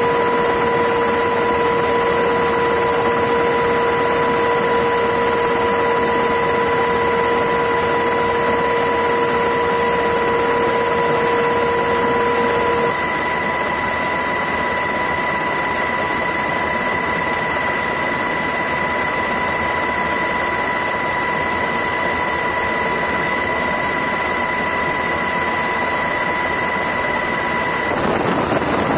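Steady engine noise with a constant high whine; the lowest part of the whine stops about halfway through, and the sound changes near the end.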